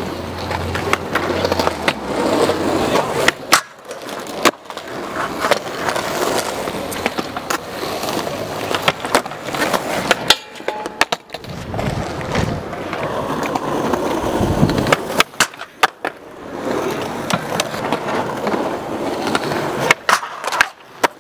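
Skateboard urethane wheels rolling on a concrete skate park surface, broken by sharp tail pops and board landings. There is also the scrape of the trucks grinding along a metal handrail, over several short clips.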